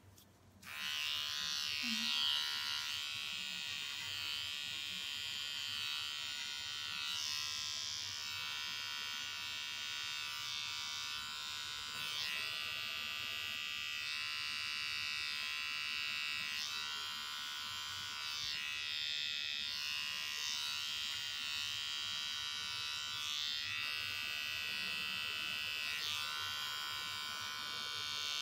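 Small pen-style electric paw-hair trimmer buzzing steadily, switched on about a second in, its tone shifting now and then as it works through the fur on a Ragdoll cat's paw.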